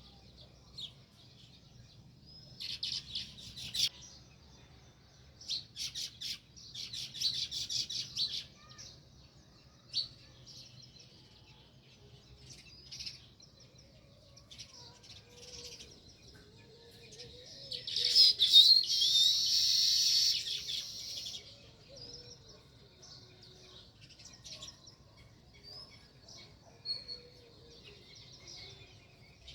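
House sparrows chirping in repeated bouts of quick, overlapping chirps, the loudest and busiest bout coming about two-thirds of the way through.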